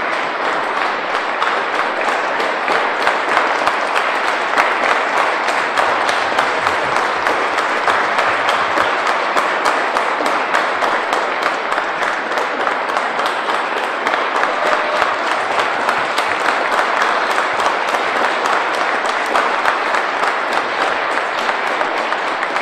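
Audience applauding: sustained, dense clapping from many hands at a steady level.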